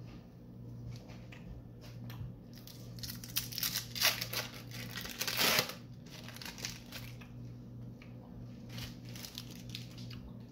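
Thin plastic wrapper crinkling and tearing as an individually wrapped cheese slice is peeled open, loudest in the middle few seconds, over a steady low hum.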